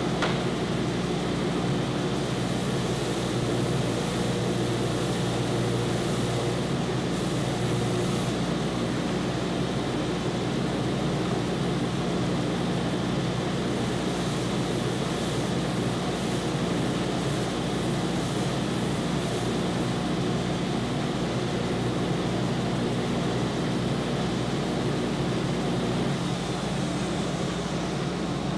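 Oliver 6310 oscillating edge sander running with a steady hum from its motor and 6-inch by 108-inch belt. A wooden board is pressed against the moving belt, adding short scratchy sanding strokes in two spells, a few seconds in and again about halfway.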